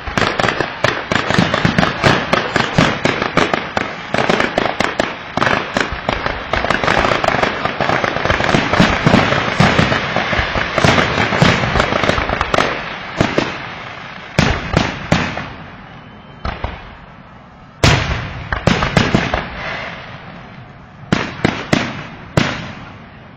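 Consumer fireworks going off: a dense, rapid run of sharp bangs for about thirteen seconds, then thinning out to a few scattered single bangs.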